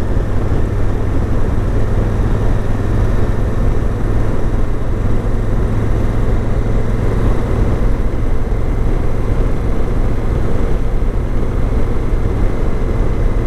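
Honda Africa Twin CRF1000L's parallel-twin engine running steadily at cruising speed, mixed with wind and road rumble on a helmet-mounted microphone. It is an even, unchanging drone with no revving or gear changes.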